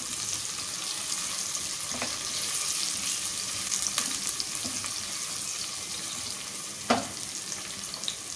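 Chopped onion, garlic, curry leaves, mustard and cumin seeds and green chillies sizzling steadily in hot oil as a spatula stirs them in a stone-coated pot. A few light knocks of the spatula against the pot, with one sharper knock near the end.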